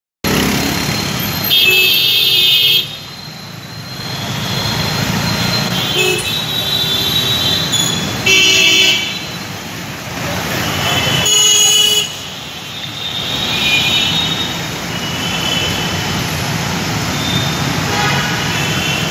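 Traffic noise of cars and motorbikes crawling along a waterlogged road, with vehicle horns honking again and again; the loudest blasts come about two seconds in, around eight seconds and around eleven seconds.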